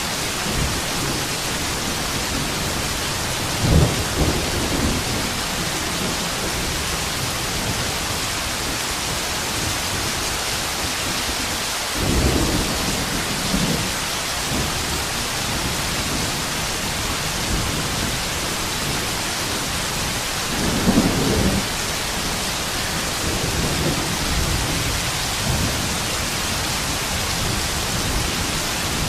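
Heavy rain pouring steadily in a dense, even hiss. Short low rumbles rise out of it a few times, about 4, 12 and 21 seconds in.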